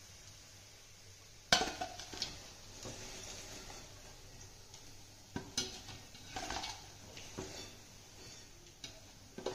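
Metal slotted spatula clinking and scraping against a frying pan and a steel bowl as fried kofta are lifted out of the oil and dropped into the bowl. There is a sharp clink about one and a half seconds in, which is the loudest, another near the middle, and a few lighter knocks after it.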